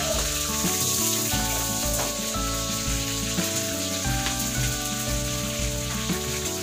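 Food sizzling in hot oil in a pan, a steady hiss, with background music playing over it.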